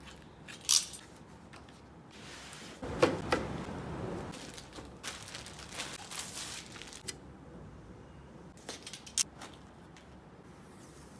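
Computer parts being handled during assembly: a few sharp clicks and knocks, with rustling and scraping in between.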